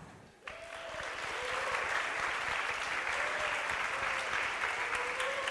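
Audience applauding, breaking out suddenly about half a second in and then holding steady as a dense clapping.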